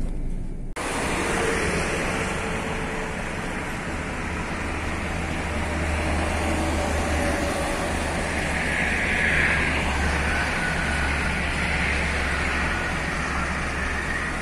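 Bus on the move: a steady low engine drone under a constant hiss of tyre, road and wind noise, starting abruptly about a second in.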